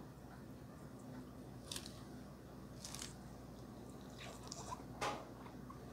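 Close-miked eating of soft noodles: chewing with a few sharp wet mouth smacks, the loudest near the end, over a faint steady hum.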